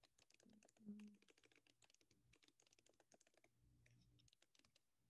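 Faint typing on a computer keyboard: quick, irregular key clicks, with a brief low hum about a second in.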